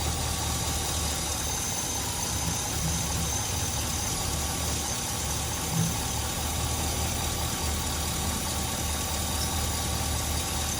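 Old Chevy truck's engine idling steadily, running lean from a vacuum leak at a split hose, with a brief thump about six seconds in.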